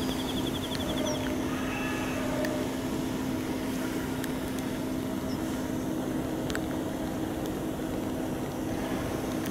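A steady engine drone with a constant low hum under a light hiss. A short, high, rapid trill sounds in the first second.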